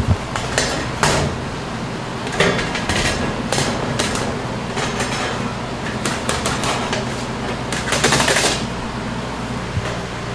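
Chocolate-making work: an irregular run of short taps, clicks and scrapes from utensils and equipment, busiest about eight seconds in, over a steady low hum.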